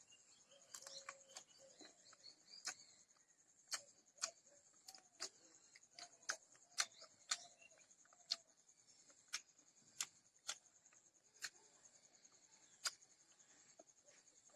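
A series of sharp, short taps or knocks, irregularly spaced at roughly one a second, some much louder than others, over a faint steady high hiss.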